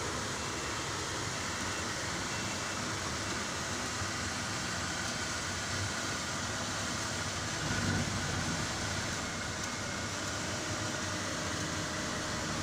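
Steady running of a Terex rough-terrain crane's diesel engine, a constant hum with a brief low surge about eight seconds in.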